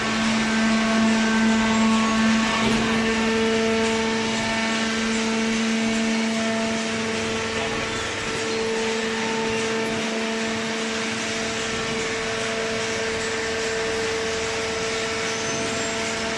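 Small hydraulic cardboard baler running, its motor and hydraulic pump giving a steady hum over a mechanical hiss.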